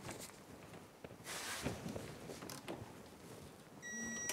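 Torque wrench turning the hub's castle nut, with faint clicks and handling noise, then a short steady electronic beep near the end, the signal that the set torque of 80 ft-lb has been reached.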